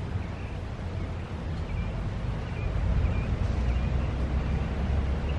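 Wind buffeting the microphone outdoors as a steady low rumble that swells a little towards the middle, with faint short high chirps scattered through it.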